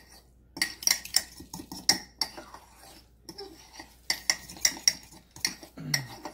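A fork stirring dry ingredients in an enamel mug, clinking and scraping against the sides in quick, irregular strikes, with a few short pauses.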